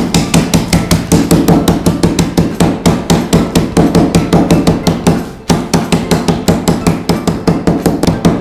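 A wooden spoon repeatedly pounds brownie crisps sealed in a plastic zip-lock bag on a wooden cutting board, crushing them into crumbs. The sharp knocks come several a second, with a brief pause about five seconds in.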